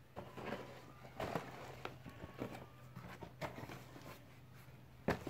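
Unboxing handling: a plastic-wrapped flexible metal shower hose and a cardboard box being moved about, giving faint rustles and scattered light clicks, with one louder knock near the end.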